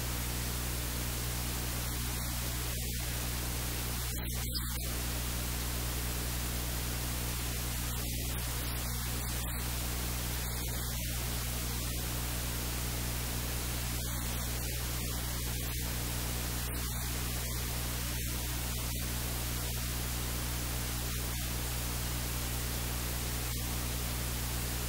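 Steady static-like hiss with a low electrical hum underneath; no distinct sound of the meat being handled stands out.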